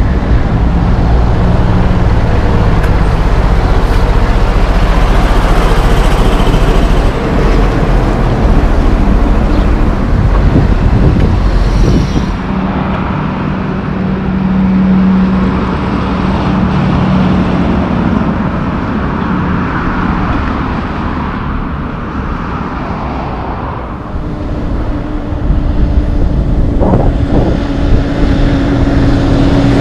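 Road traffic with loaded logging trucks' diesel engines passing: a steady engine drone over tyre noise. The sound changes abruptly about twelve seconds in, and a second, higher engine drone comes in near the end as another truck approaches.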